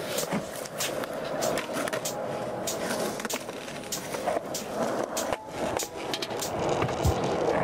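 Skateboard wheels rolling on smooth concrete: a steady rumble broken by frequent sharp clicks, with a few heavier knocks near the end.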